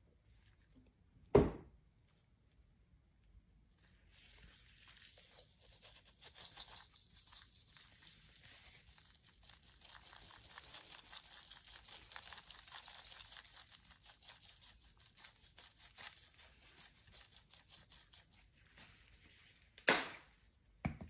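Ground garlic-and-pepper seasoning being shaken out over raw chicken wings in a glass bowl: a dense, hissing, crackly rattle in quick pulses for about fifteen seconds. A loud thump comes about a second in, and another near the end.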